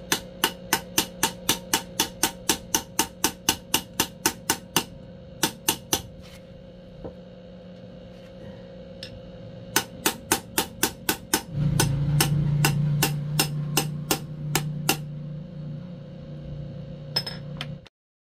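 Rapid metal hammer taps, about four a second, seating a bearing in an aluminium motorcycle flange hub: a long run of strokes, a pause, then a shorter run. About halfway through, a loud low steady hum sets in. It fades and then cuts off suddenly near the end.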